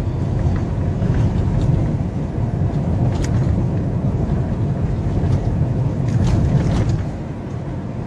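Steady low rumble of a moving car heard from inside the cabin: engine and tyre noise while driving slowly on a snow-covered road.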